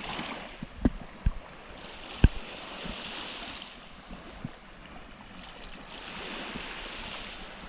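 Water sloshing and lapping around a small fishing boat with wind on the microphone, the rush swelling and fading. A few sharp knocks sound about a second in and again about two seconds in, the last the loudest.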